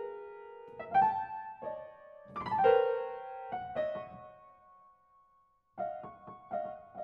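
Solo piano music: slow, separate notes and chords that ring and fade, with a brief pause before the notes resume near the end.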